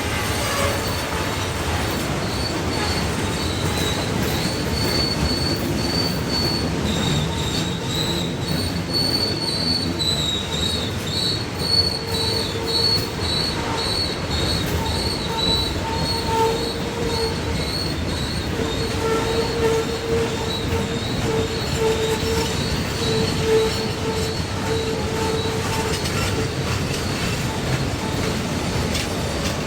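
Norfolk Southern train rolling down a steep mountain grade with its wheels squealing. A high, wavering squeal runs throughout, and lower squealing tones come and go over the steady rumble of the passing cars, the creepy unusual noise the train makes on the descent.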